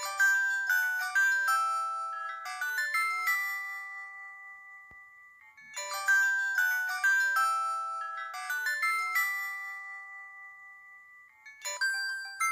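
Ringtone playing from a 2008 Samsung Anycall SPH-C2205 slide phone: a short synthesized melody of quick notes that ends on a held, fading note. It plays through twice and starts a third time near the end.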